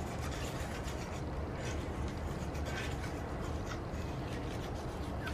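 Small, faint scraping and ticking of metal parts as the front lens bezel ring of a Yashica Electro 35 GSN is fitted and turned by hand, over a steady low hum.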